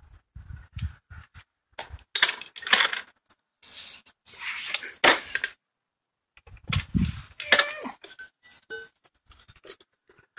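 Metal car parts and tools being handled: irregular clinks and knocks with short bursts of scraping and rustling.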